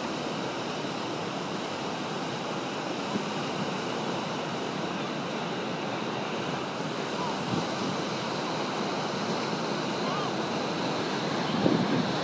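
Ocean surf breaking on coastal rocks, a steady rushing wash, with wind buffeting the microphone. A short louder burst comes near the end.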